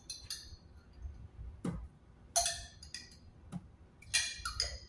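Metal spoon clinking and tapping against a jar of pizza sauce as sauce is scooped out: several sharp, irregular clinks, a few with a short ring.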